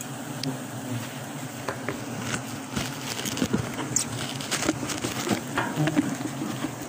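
Honeybees buzzing steadily around a freshly cut wild honeycomb, with crackling rustles of footsteps and movement on dry leaf litter from about two seconds in.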